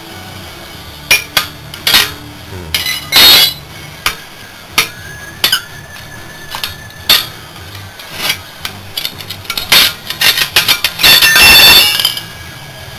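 A hand tool knocking, prying and scraping on the rusted cast-iron manifold and finned copper tubes of a corroded Raypak pool heater. The metal clinks and knocks are sharp and irregular, some ringing briefly. There are longer scraping runs about three seconds in and again near the end.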